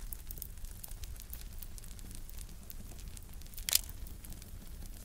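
Scrap-lumber fire crackling, with many small sharp snaps and one loud pop about three and a half seconds in.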